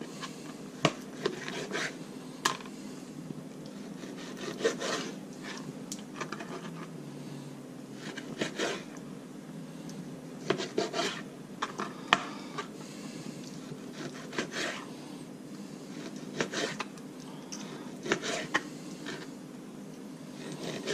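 Chef's knife cutting a raw fish fillet into chunks on a plastic cutting board: irregular knocks of the blade on the board, with soft scraping strokes as it slices through.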